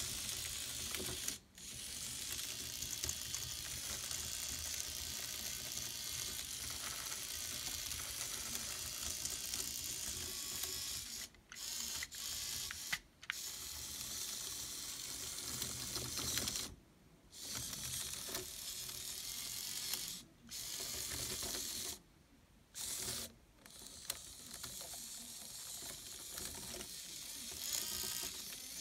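Small electric gear motors of a miniature tracked robot chassis running, with the plastic link tracks rattling over the drive wheels. The drive stops and starts again several times, with short pauses of a second or so.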